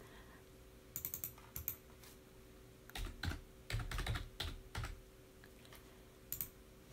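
Typing on a computer keyboard: several short, faint runs of keystrokes with pauses between them.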